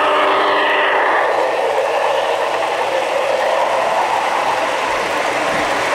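HO-scale Union Pacific Big Boy model locomotive with its onboard sound, followed by loaded coal hopper cars rolling past on the track. A held chord of steady tones ends about a second in, then an even rushing rattle of wheels on rail.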